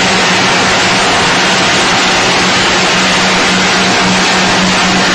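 Puffed corn snack production line running: a loud, steady rush of machine noise with a constant low hum underneath.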